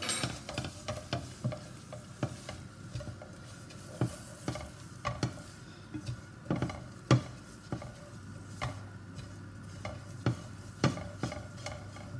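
Silicone spatula stirring and scraping ground spices around a metal pot, with irregular taps against the pot, a few louder ones, while the spices sizzle in a little ghee: the spice mix for a pickle being roasted.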